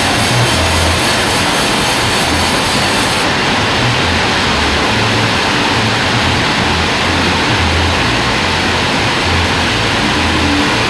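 Band sawmill running with a loud, steady machine noise. The highest hiss drops away about three seconds in.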